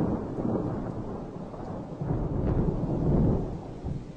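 Low rumbling noise of a moving car heard from inside the cabin, swelling at the start and again for about a second and a half past the midpoint, then easing off near the end.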